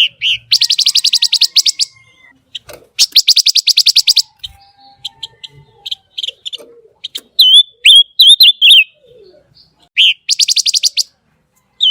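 Pancawarna songbird singing hard, in full song: three rapid, dense trills, each lasting about a second, broken by sharp, piercing whistled notes with quick hooked inflections.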